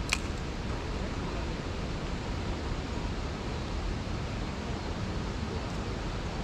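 Steady rushing outdoor noise, with one sharp click just after the start.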